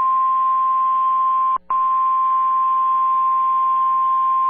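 NOAA Weather Radio warning alarm tone: one steady, loud high tone of about 1050 Hz over radio hiss and hum, broken off for a split second about one and a half seconds in. The tone signals that a severe weather warning is about to be broadcast.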